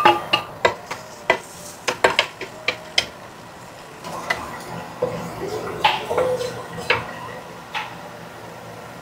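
A cooking utensil stirring garlic in a frying pan: irregular clinks, knocks and scrapes against the pan, busier in the first few seconds and more spaced out after.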